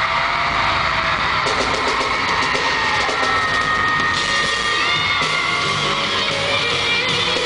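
A live rock band with drums playing under a loud crowd screaming and cheering, with shrill high screams held and sliding over the noise.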